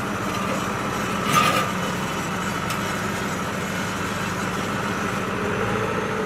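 An engine, most likely a tractor's, running steadily at an even pitch, with a brief louder, higher-pitched noise about a second and a half in.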